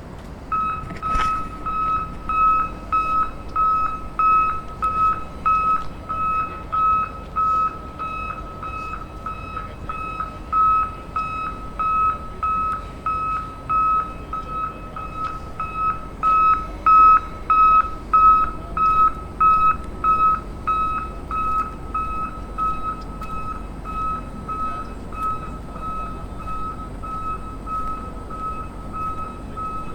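Tractor's reversing alarm beeping steadily, about one and a half high beeps a second, over a faint low engine rumble. The beeps grow louder toward the middle and then fade somewhat as the tractor moves away.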